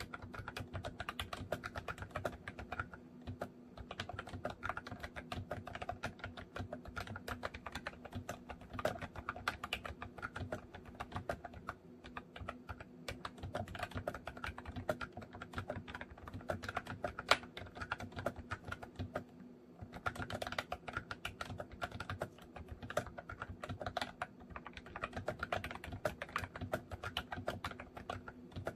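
Continuous typing on a MOFii retro-style Candy keyboard: a dense stream of key clicks and key returns, with brief pauses about three seconds in and again near twenty seconds. A faint steady hum lies under it.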